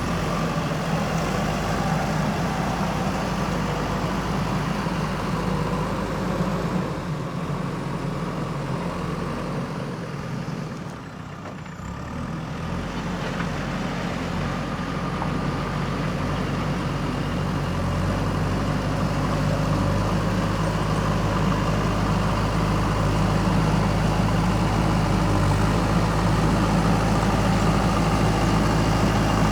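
JCB backhoe loader's diesel engine running steadily. It eases off briefly about eleven seconds in, then picks back up and grows a little louder.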